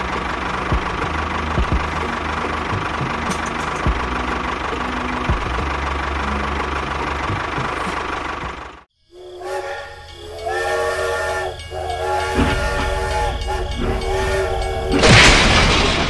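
A steady, engine-like running sound from a toy tractor for about nine seconds. After a brief break, a toy steam train's whistle sounds in several stepped tones, ending in a loud burst of steam hiss near the end.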